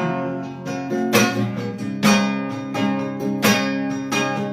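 Acoustic guitar strumming chords, an instrumental gap in a worship song, with a strum about once a second.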